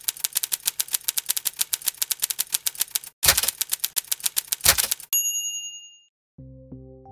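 Typewriter keys clacking quickly, about eight strokes a second, then after a short break a few more strokes and the ring of the typewriter bell about five seconds in. A soft low chord starts near the end.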